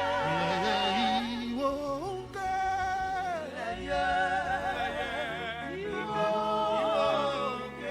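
Church choir singing a Yoruba hymn, several voices holding long, wavering notes with vibrato between sung lines.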